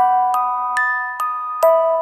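Background music: a gentle melody of struck, ringing, bell-like notes, a little over two notes a second.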